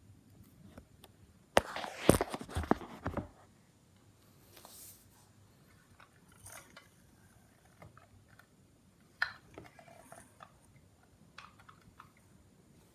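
Packaging being handled during an unboxing: a loud burst of crinkling and clicking lasting under two seconds, then scattered quiet taps and rustles.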